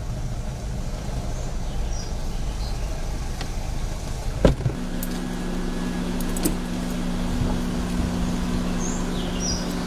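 Car in motion, heard from inside the cabin: a steady low rumble of engine and road noise, a single knock about four and a half seconds in, then a steady low hum.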